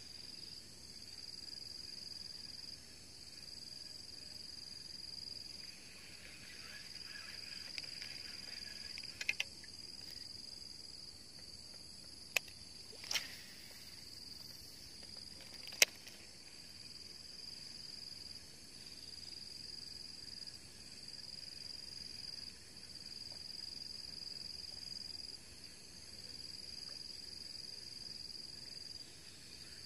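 A steady, high-pitched insect chorus that comes in stretches a few seconds long with short breaks. A few sharp clicks sound in the middle, the last one the loudest.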